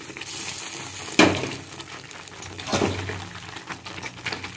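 A metal spatula stirring chopped okra into thick gravy in a metal kadai, knocking sharply against the pan about a second in and again near three seconds.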